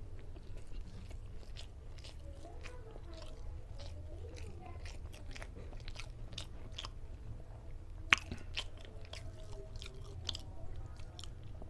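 Close-up chewing of rice and curried tilapia fish head eaten by hand, with many short sharp mouth clicks and smacks; one louder click about eight seconds in.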